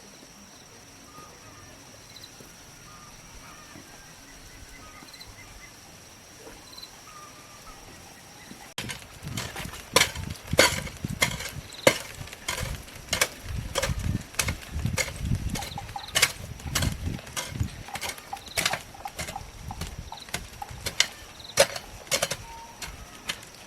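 A faint steady high tone at first, then from about nine seconds in a run of sharp, irregular knocks, one or two a second with a dull thud under each: a hand tool striking again and again while ground is worked for a vegetable plot.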